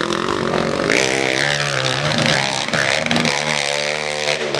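Trail motorcycle engine revving hard, its pitch rising and falling again and again as the throttle is worked on a steep dirt hill climb.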